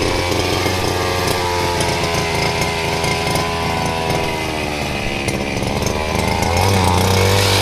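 Small petrol engine running steadily. It sags a little in the middle, then picks up and gets louder about six and a half seconds in.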